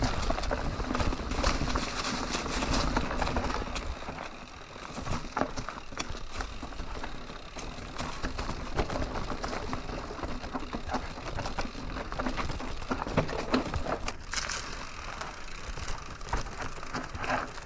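Canyon Neuron full-suspension mountain bike rolling downhill over dry leaves, dirt and rock: tyres crunching through the leaf litter while the bike rattles and knocks over the rough ground.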